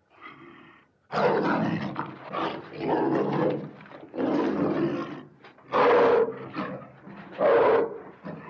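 Tiger roaring and growling: a rapid series of about six rough, loud calls, each under a second and a half long, the loudest two in the second half.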